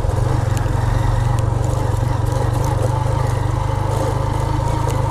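Motorcycle engine running steadily on the move, a constant low hum with no change in pitch.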